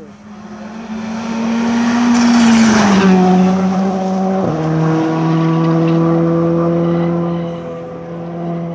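A rally car going by at speed. Its engine note rises as it comes in and is loudest about two to three seconds in, with a rush of tyre and wind noise as it passes. Then the note falls, drops suddenly in pitch about four and a half seconds in, and holds steady as the car pulls away, fading near the end.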